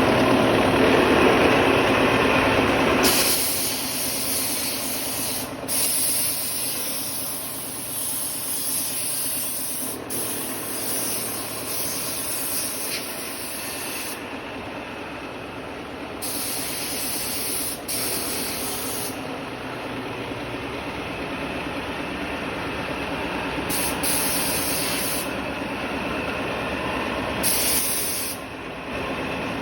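CNC milling machine rough-cutting a mould plate: steady cutting and spindle noise, loudest in the first three seconds, with a high hiss that cuts in and out several times.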